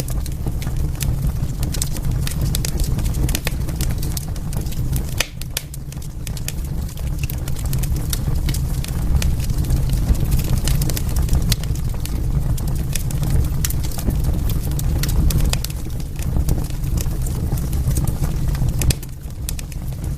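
Wood fire crackling in a fireplace: a steady low rumble of burning with frequent sharp pops and snaps scattered throughout.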